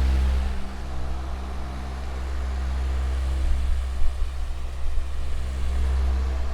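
Electric fan with metal blades running steadily: a low motor hum with a few steady tones over an even rush of moving air.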